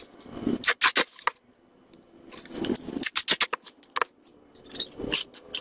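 A small home-made dimmer box of pine and MDF being handled and pressed by hand, giving three runs of sharp clicks and small knocks with a little rubbing.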